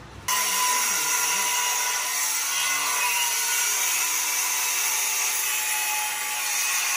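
A power tool running steadily, cutting in abruptly a moment after the start, with a high-pitched noise and a faint whine.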